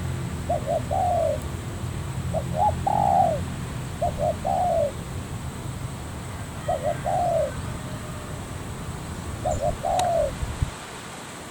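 Spotted dove cooing, five phrases a couple of seconds apart, each two short notes then a longer arched coo, over a low steady hum that cuts off near the end.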